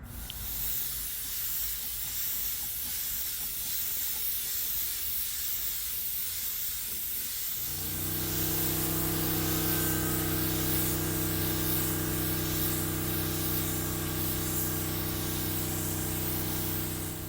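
Automotive paint spray gun hissing steadily as it lays the mid coat of a three-stage red paint. About eight seconds in, a motor starts up with a steady hum under the hiss, and both stop together near the end.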